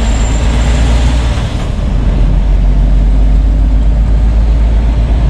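Diesel lorry engine and road noise inside the cab while driving: a steady low rumble.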